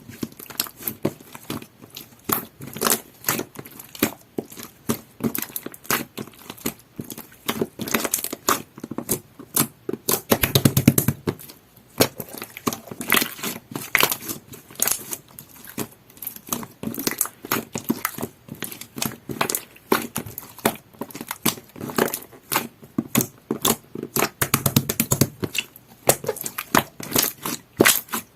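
Jelly-textured sky-blue pearl slime being squished and pressed by hand, giving a steady stream of irregular sticky clicks and crackles.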